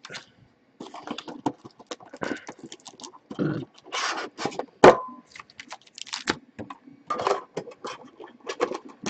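Hands rummaging in a metal collector's tin, crinkling and rustling its clear plastic packaging and booster packs, with irregular scrapes and clicks. One sharp knock about five seconds in, with a brief ring.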